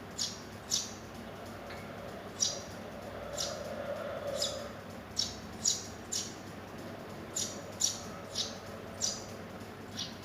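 Young Eurasian tree sparrow chicks chirping: about a dozen short, high chirps at uneven intervals.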